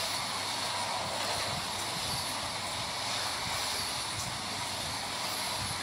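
Vande Bharat Express electric trainset passing a platform at speed: a steady rushing noise as its coaches go by.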